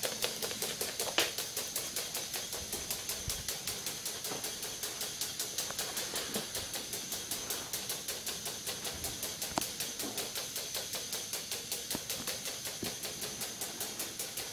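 K'nex roller coaster model's motor-driven chain lift running, a steady, even clicking at about five clicks a second.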